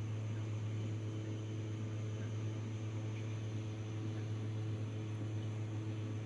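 Steady low hum over an even hiss, with no change in level.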